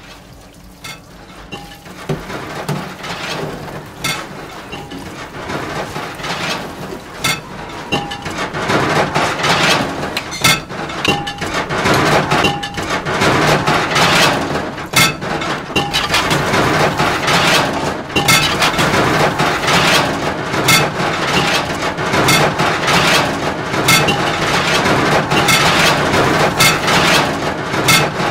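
Dishwashing clatter: ceramic plates and metal pots and pans knocking and clinking against each other and the steel sink, in quick irregular knocks. It grows busier and louder after the first couple of seconds.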